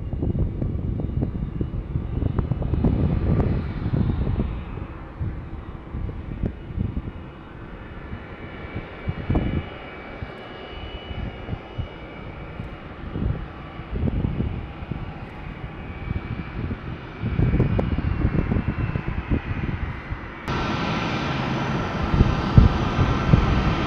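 Four Pratt & Whitney F117 turbofans of a C-17 Globemaster III running at taxi power: a low rumble that swells and fades under a steady engine whine. About twenty seconds in the whine turns suddenly louder and higher as the engine intakes face the listener.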